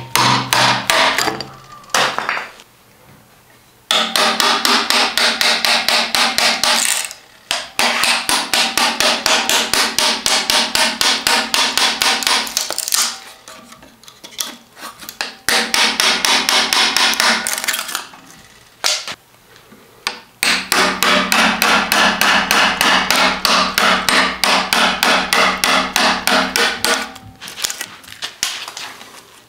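Hand tool cutting into a hackberry bow stave held in a vise: runs of quick, evenly repeated sharp strokes on the wood, several a second, each run lasting a few seconds with short pauses between.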